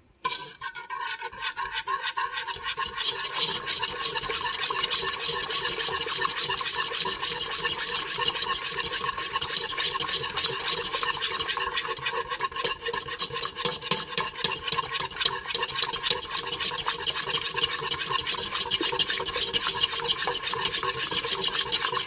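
Wire whisk beating hot sugar syrup in a nonstick pot, a fast, continuous scraping of the wires against the pot. The syrup, cooled to about 190 degrees, is being whipped to turn it white and foamy for bee fondant.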